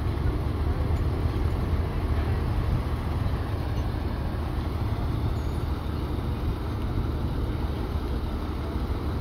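Heavy diesel engine running steadily with a low rumble, as from the recovery crane or truck working at the scene.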